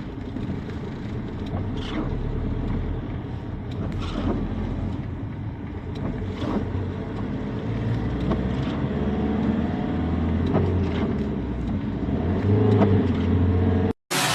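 Storm wind rumbling steadily over a phone microphone, with faint knocks now and then.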